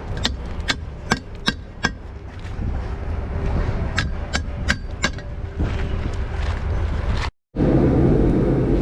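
KAYO K4 enduro motorcycle running, a low rumble broken by a dozen or so irregular sharp knocks. After a short cut about seven seconds in, a louder, steady engine-and-riding rumble.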